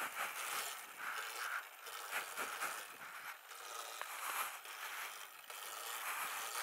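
Sur-Ron Light Bee electric dirt bike rolling slowly over a dirt trail: irregular crunching and scraping of the tyres on the ground, with no steady motor tone.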